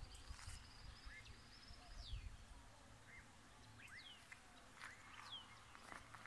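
Faint birds calling: several short whistles that slide downward, repeated every second or so, and a few brief rising chirps, over a faint low rumble.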